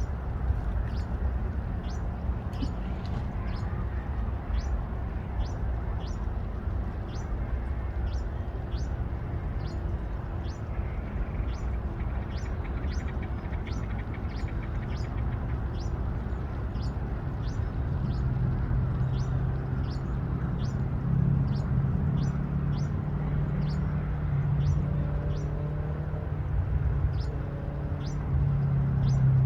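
A bird repeating one short, high, falling chirp about once a second, over a steady low rumble. A low hum grows louder about two-thirds of the way in.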